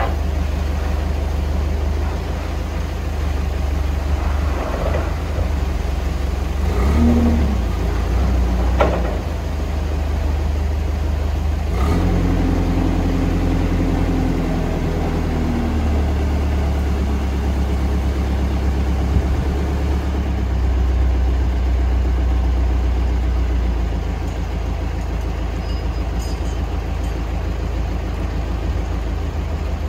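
Manitou M26.4 rough-terrain forklift's diesel engine running steadily, rising in speed now and then as the hydraulics raise and lower the mast. About twelve seconds in, a steady pitched hydraulic whine sets in for a few seconds as the mast lifts.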